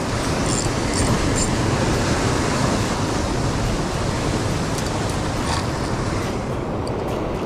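Ocean surf breaking and surging over shore rocks, a steady loud rush of water.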